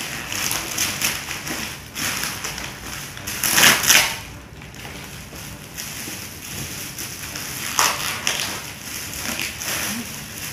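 Plastic bags and gift wrapping rustling and crinkling in irregular bursts as a gift parcel is unwrapped by hand, loudest about three and a half to four seconds in.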